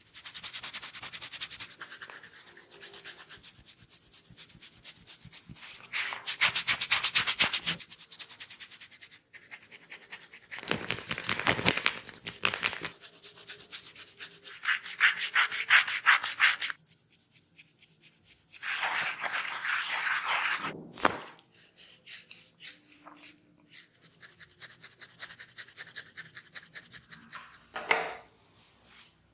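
Fast scratching and rubbing on a dry scalp and hair to loosen dandruff, in stretches of a couple of seconds of many quick strokes, with quieter gaps between.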